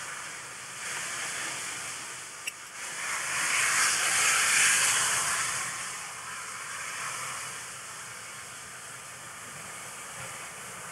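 Steam locomotive coming slowly under a bridge, hissing steam; the hiss swells loudly about three seconds in and eases off over the next few seconds. A brief sharp click just before the hiss swells.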